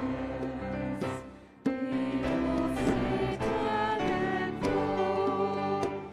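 Worship band playing and singing: several voices singing together over a band backing. The music drops away for about half a second a little after a second in, then comes back in.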